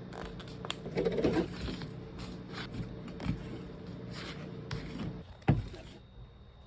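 Utensil scraping and tapping as hummus is scooped and spread onto a wrap, with a louder knock about five and a half seconds in. A steady hum underneath drops away near the end.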